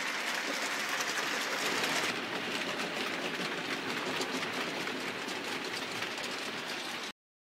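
Model trains running round the layout track: a steady whirr and rattle of wheels on rails with many fast small clicks. The sound cuts off suddenly near the end.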